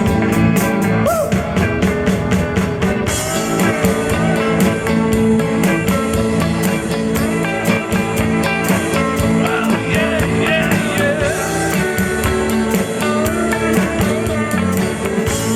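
Rock and roll band playing an instrumental break, with a guitar lead over a steady bass and drum beat.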